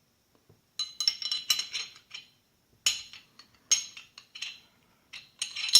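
Parts of a field-stripped Glock 17 pistol clicking and clinking as they are handled: several short bursts of sharp clicks and rattles with a slight metallic ring.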